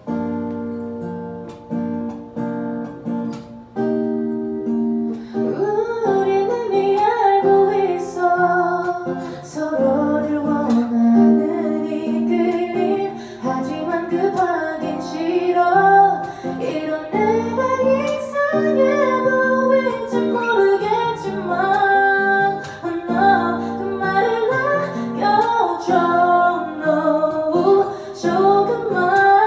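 A woman sings a ballad into a microphone, accompanied live by a single acoustic guitar. The guitar plays alone for about the first five seconds before the voice comes in.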